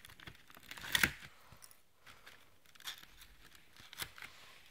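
Short clicks, scrapes and rustles of a cardboard advent calendar being handled while someone works a chocolate out of it, the loudest tear-like scrape about a second in.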